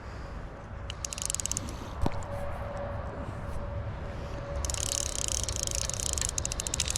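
Fly reel's click-and-pawl drag ratcheting in rapid ticks as a hooked trout is played: a short run about a second in, then a longer one from two-thirds of the way through, over low river noise.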